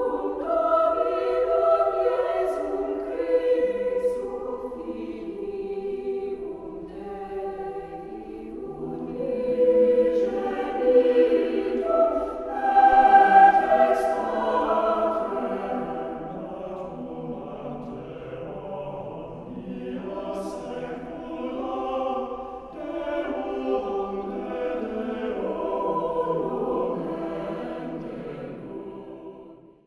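Background music: a choir singing slow, sustained chords, fading out near the end.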